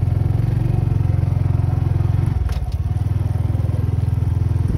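Motorbike engine running close up while riding, with a steady pulsing note that changes slightly about two seconds in, and a brief clatter just after.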